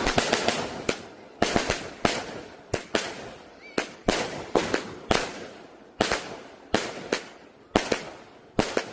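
A 168-shot, 0.8-inch consumer fireworks cake firing in sequence, with a sharp bang about twice a second, each dying away quickly, and a faint rising whistle once midway.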